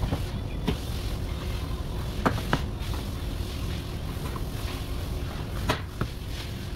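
Plastic wheel-arch moulding being pried off a car body with a hand tool: about six short, sharp clicks and snaps at uneven intervals, over a steady low rumble.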